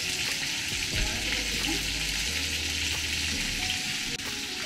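A pot of tomato sauce with vegetables bubbling and sizzling steadily over a gas burner while a spoon stirs it, with a couple of light knocks of the spoon against the pot.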